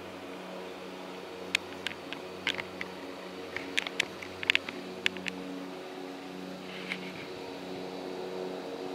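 A steady low mechanical hum, with a run of sharp clicks and ticks from about a second and a half to five seconds in.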